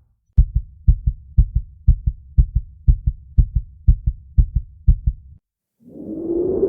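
Cinematic heartbeat sound effect: a fast, low lub-dub heartbeat, about two beats a second, that cuts off suddenly after about ten beats. After a brief silence a swelling sound with a held tone begins near the end.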